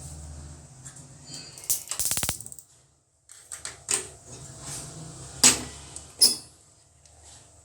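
Kitchen handling noises: a short rapid rattle about two seconds in, then a few sharp knocks and clicks as utensils and containers are moved about.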